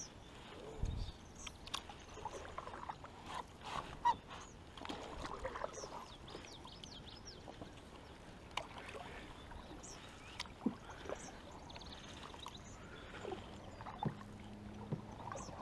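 Canoe paddles dipping and pulling through calm river water, with scattered knocks and small splashes as the strokes go on, and a few high chirps about a third of the way in.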